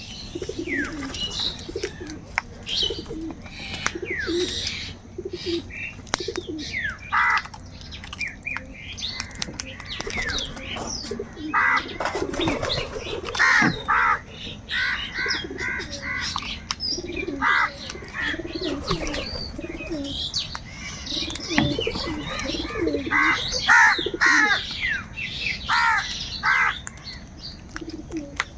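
A gathering of crows cawing over and over in short, harsh calls, several at once in places, mixed with the higher chirps of small birds and low cooing calls.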